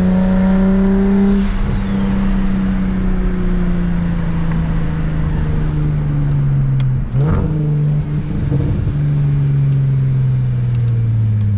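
The single-turbo N54 inline-six of a BMW 335is, running steadily with its engine note slowly falling in pitch as the car eases off and slows. A high whine rises and then drops away about a second and a half in, and there is a short burst of noise about seven seconds in.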